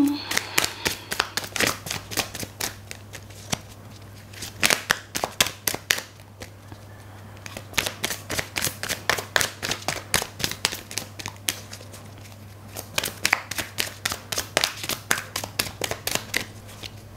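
A tarot deck being shuffled by hand: rapid runs of light card flicks and clicks in several spells with short pauses between.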